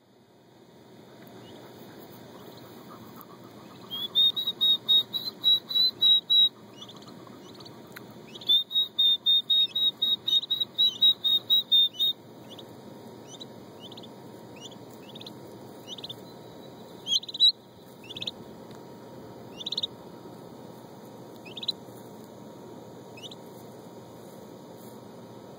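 Turkey poults peeping: two runs of rapid, high, clear peeps, about four a second, in the first half, then single down-slurred peeps about a second apart.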